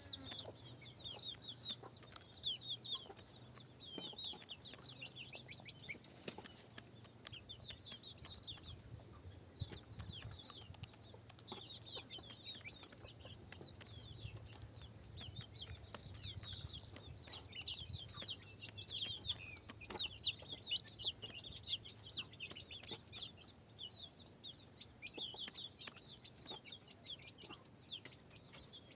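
Chickens calling: many short, high chirps overlapping continuously, with a faint steady low hum underneath.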